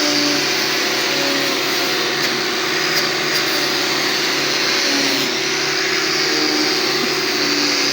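A handheld electric power tool runs steadily under load, with a high whine above a lower hum.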